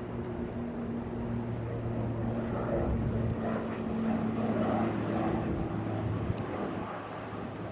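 A distant engine drones steadily, with a rushing noise that swells in the middle and then eases off.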